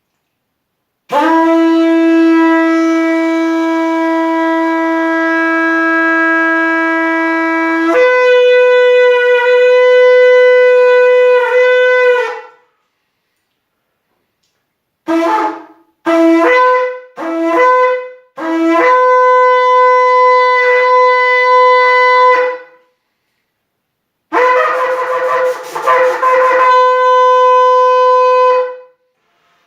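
Shofar blown in a series of blasts. A long call of about eleven seconds steps up in pitch partway through, then three short blasts, then two more long calls, the last starting breathy and then stepping up in pitch.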